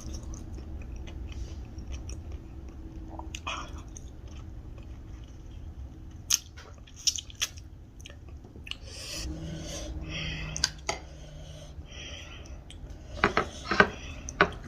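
A person chewing and biting food close to the microphone, with scattered wet clicks and mouth noises and a cluster of sharper clicks near the end.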